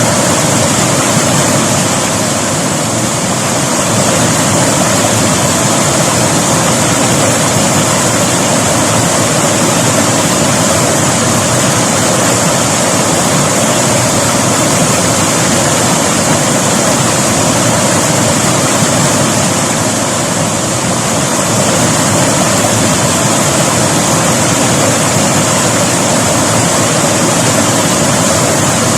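River water rushing steadily over rocks, a loud, even roar of flowing water that dips slightly in level twice.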